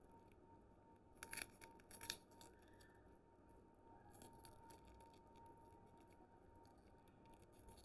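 Clear plastic lollipop wrapper crinkling and crackling as fingers peel it off the candy, in short bursts with the loudest crackles about one and two seconds in.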